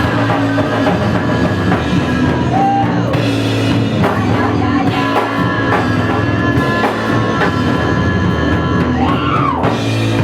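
Loud punk rock from a two-piece band: a drum kit playing a fast, busy beat under a driving bass guitar.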